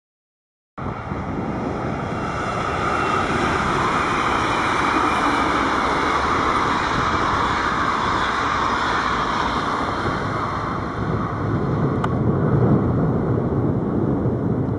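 Train running past on the rails: a loud, steady rolling noise with a low rumble underneath. It cuts in abruptly under a second in, after total silence.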